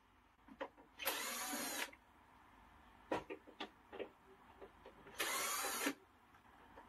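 Electric screwdriver running in two short bursts, about a second in and again about five seconds in, backing screws out of an air conditioner's indoor unit casing, with light clicks between.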